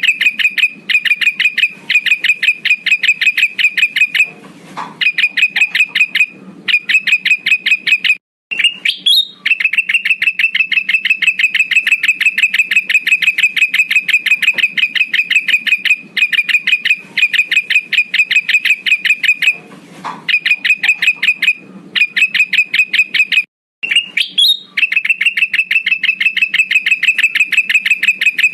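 Male kutilang emas bulbul calling in long, rapid trills of sharp notes held at one pitch, about ten notes a second. The trills are broken by short pauses, and twice a trill opens with a quick upward sweep.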